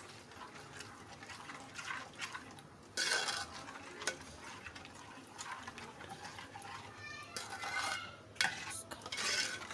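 A steel spoon stirring a thick yogurt, spice and oil mixture in a steel bowl: wet slopping with the spoon scraping and clinking against the bowl, in irregular strokes that get louder about 3 s in and again near the end.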